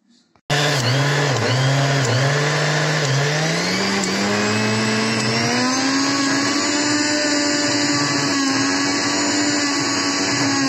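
Electric blender motor churning cream for butter: it starts suddenly, wobbles in pitch at first, then climbs over a couple of seconds and runs steadily at a higher speed.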